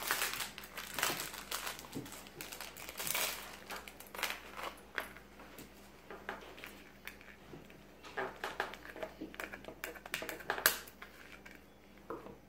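Plastic and cardboard packaging crinkling and rustling as it is opened by hand, with many small irregular clicks and taps and one sharper click near the end.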